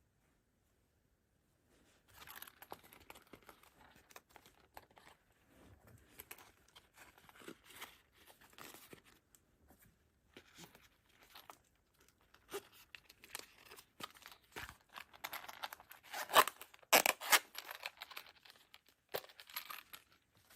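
Packaging being handled during an unboxing: rustling, crinkling and tearing of wrapping, with scattered clicks and knocks. The handling is busiest and loudest about sixteen to eighteen seconds in.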